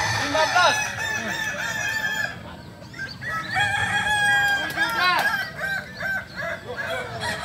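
Many kukuak balenggek roosters, the West Sumatran breed bred for its long tiered crow, crowing at once in overlapping calls. The chorus thins about two and a half seconds in, then fills again.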